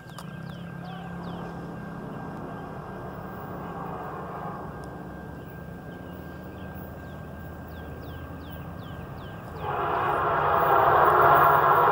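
EMD F59PH diesel locomotive approaching with a low steady rumble, then sounding its horn loudly and suddenly near the end, held on.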